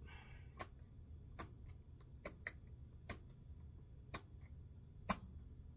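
Small metal tool tapping and clicking against a retaining clip and the parts of a Penn 430ss spinning reel while the clip is worked into its groove. The clicks are sharp, faint and irregular, about seven in all, with the loudest about five seconds in.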